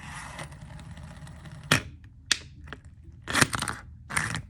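Plastic fidget toy being handled, giving a handful of sharp, irregularly spaced clicks and snaps, starting nearly two seconds in and loudest about three and a half seconds in.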